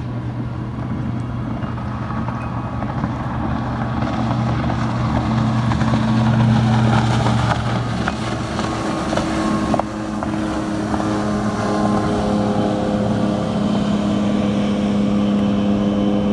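Motorboat engine droning as a fast boat runs past on the river. It grows louder to a peak about seven seconds in, then the engine note shifts higher about ten seconds in and holds steady.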